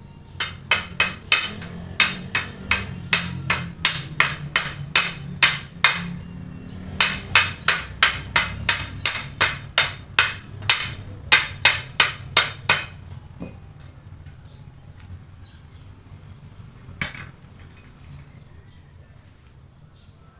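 A hammer striking metal in a steady run of blows, about three a second, with a short pause about six seconds in, then resuming until about thirteen seconds in; one more single blow follows a few seconds later.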